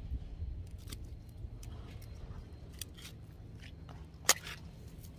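Fishing net being pulled and handled over a concrete railing: scattered small crackles and clicks, with one sharp click a little over four seconds in, over a steady low rumble.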